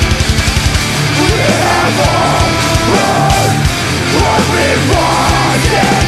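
Live metalcore band playing loud and fast: distorted guitars and rapid kick-drum strokes, with a voice yelling over the music from about a second in.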